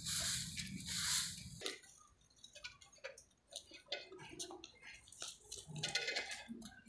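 Short straw hand broom sweeping a packed-dirt yard, with a swish roughly every second, that stops after about two seconds. Then faint scattered clicks and crackles from a bundle of dry firewood twigs being carried.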